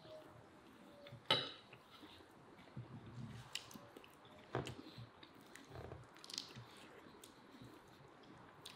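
A person eating chicken and rice: chewing and biting at the meat, with scattered light clicks of a spoon against a plate, the sharpest about a second in.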